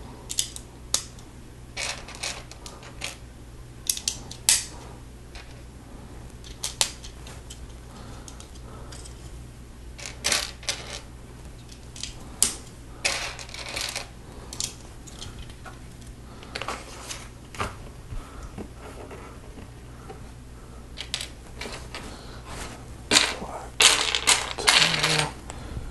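Lego plastic pieces clicking as they are pressed together and handled, in scattered sharp clicks. Near the end comes a denser clatter as loose pieces are picked through in the pile.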